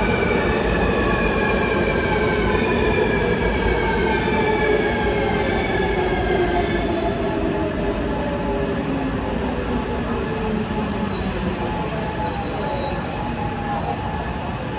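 Taipei Metro Circular Line train running through the station, its traction motors whining in several tones that slide slowly down in pitch as it slows. A high-pitched squeal joins about halfway through.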